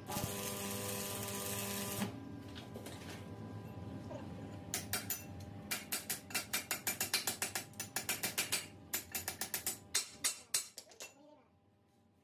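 Stick welding crackles and hisses for about two seconds. After a pause, a chipping hammer strikes the fresh weld bead on the steel axle tube in a quick run of about five blows a second, knocking off slag, and stops about a second before the end.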